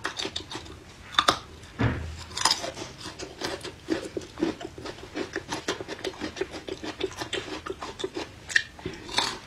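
Close-miked eating sounds: chewing, with a scattering of short crisp crunches and wet mouth clicks as a raw single-clove garlic bulb is bitten and chewed.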